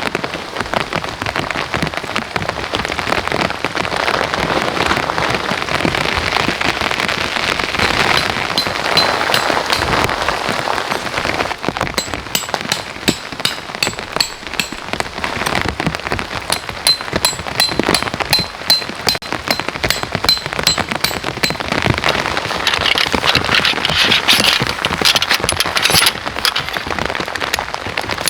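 Heavy rain falling steadily, a dense patter of drops striking surfaces. Twice in the middle there is a short run of faint, evenly spaced high pips.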